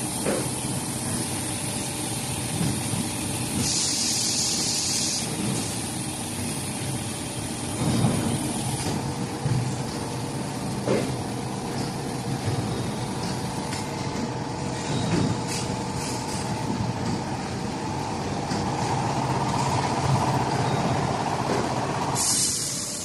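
CNC panel bender and gantry loading robot running: steady machine noise with a few knocks and two short bursts of air hissing, one about four seconds in and one near the end, and a whine that swells in the second half.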